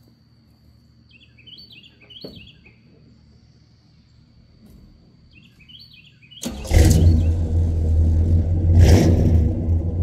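Birds chirping, then about six and a half seconds in a stock 350 V8 breathing through new 2.5-inch dual exhaust with Flowmaster mufflers fires up and runs loud. It surges briefly twice and then settles into a steady idle.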